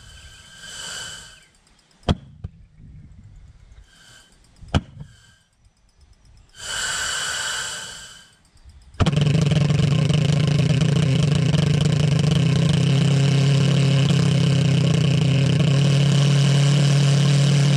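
Propane-fuelled pulse jet engine being started. There are two short bursts of hissing and two sharp clicks, then about nine seconds in it lights and runs with a loud, steady, low-pitched buzz.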